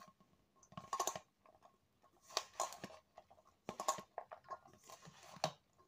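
A hand squeezing and tossing sliced okra and onion with flour and spices in a steel bowl, a crackly, squelching rustle in four short bouts. This is the dry mix for okra pakoda, worked before any water is sprinkled in.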